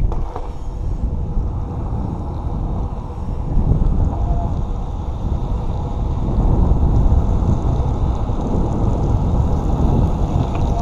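Wind noise buffeting a GoPro's microphone as a BMX bike rolls along a wet asphalt road, with tyre noise from the road beneath it. It grows louder about four seconds in.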